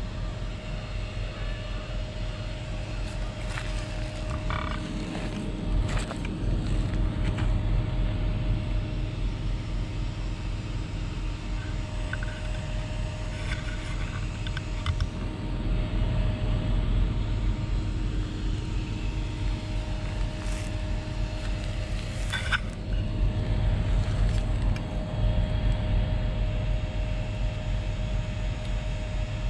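Tabby cat purring while being stroked: a low, steady, pulsing rumble, with a few faint clicks.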